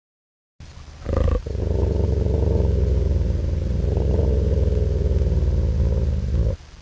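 Wolf growling: a low, continuous rumble with a short sharper sound about a second in, cut off abruptly near the end.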